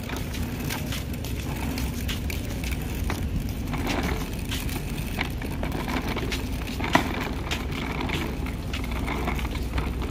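Small plastic wheels of a rolling cooler rattling steadily over concrete pavement as it is pulled along, with one sharp knock about seven seconds in.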